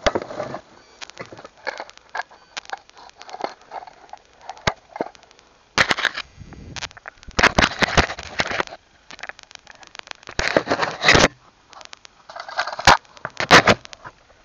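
Metal chains clinking and knocking against an old wooden chest as it is handled: a run of sharp clicks with several longer noisy bursts.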